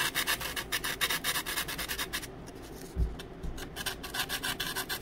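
Small hand file rasping in a slot of a laser-cut plywood kit part, in quick back-and-forth strokes that pause briefly a little past halfway and then resume. The slot is being opened up so a bulkhead fits snug without marking the wood.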